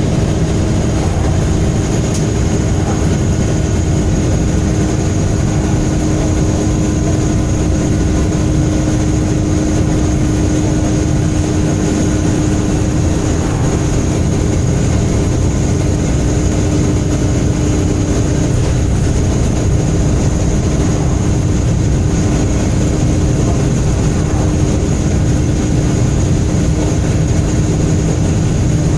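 MAN Enviro 300 bus's diesel engine running steadily with a deep rumble and a steady humming tone over it.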